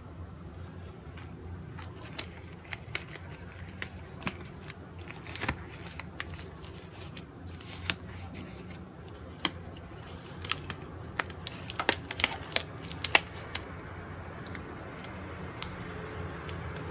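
Disposable glove being handled and pulled onto a hand: irregular crinkles and sharp snaps of the thin glove, coming thickest a little past the middle, over a steady low hum.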